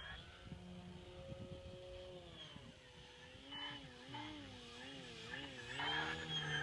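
Electric motor and propeller of a large radio-controlled airplane whining in flight, the pitch wavering up and down and the sound growing louder near the end as the plane comes in low. The odd note is put down by the fliers to something in the motor mount or, more likely to them, a motor bearing.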